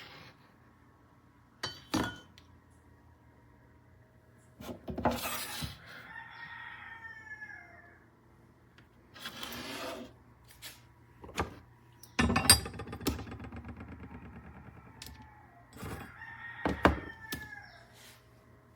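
A rooster crowing twice, each call ending in a falling pitch, with several sharp knocks and clatters in between.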